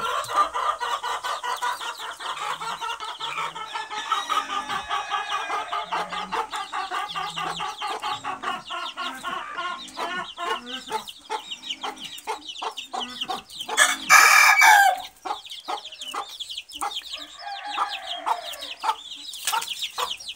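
A flock of chickens clucking and calling steadily, with one loud crow from a rooster a little after the middle.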